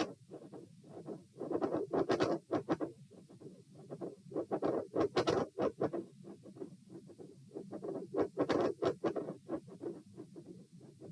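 Stethoscope recording over the heart at the aortic area: heartbeats with a loud second sound and a continuous murmur, overlaid by scratchy rubbing noise that swells in clusters every few seconds.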